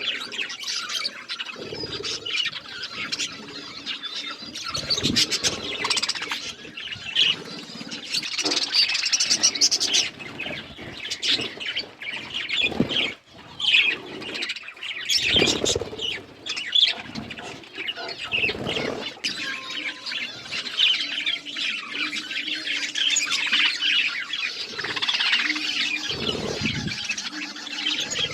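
A group of budgerigars chirping and chattering without a break, with scattered soft thuds and wing flutters among them.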